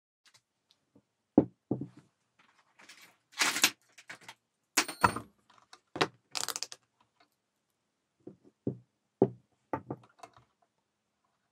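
Handling noises on a cloth-covered table: irregular knocks, clicks and short rattles as an alternator stator with its diode block is moved about and a multimeter and its test leads are handled. A run of clicks and knocks comes in the second half.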